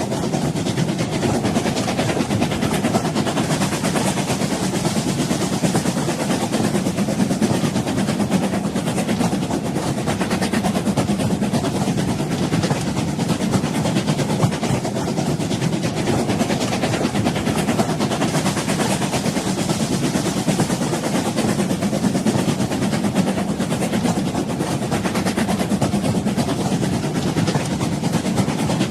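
A moving train: a steady rumble of wheels on rails with a dense, fine rattle, holding even throughout.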